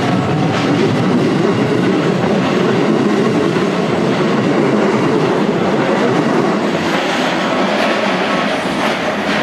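Electric commuter train running past close by over a level crossing, with a steady loud rumble and wheels clattering over the rail joints.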